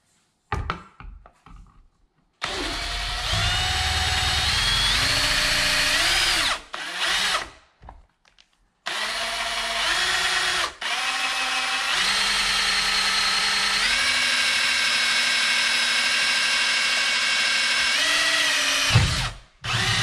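Cordless brushless drill driving a long bit through the wall behind an outlet box. The motor whines in two long runs with a short stop between them, its pitch stepping up and down as the trigger speed changes, after a few short clicks and bursts at the start.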